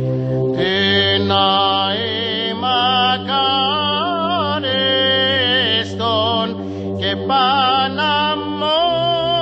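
Byzantine chant: a solo male chanter sings a slow, heavily ornamented melody over a steady held drone note, the ison. The drone shifts to a new note about a second in and again near the end.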